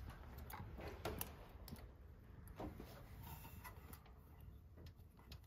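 Faint, scattered small metal clicks and taps from hand tools at an engine's rocker arms as the valve lash is being set on a solid roller cam.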